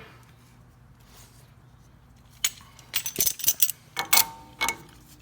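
Metal hand tools clinking and clanking, a quick irregular run of sharp knocks with short ringing tones that starts about halfway in.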